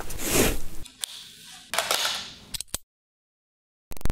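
Jacket zipper being pulled, then a second, shorter rasp with a few clicks. After about a second of silence, a single sharp hit comes near the end.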